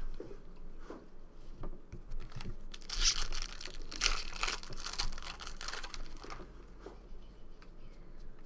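Foil wrapper of a trading-card pack crinkling and tearing, a dense run of crackles from about three seconds in until past six seconds, with lighter card-handling clicks around it.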